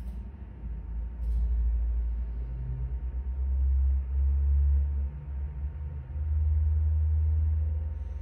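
Low rumbling handling noise from a handheld phone's microphone, swelling and fading several times.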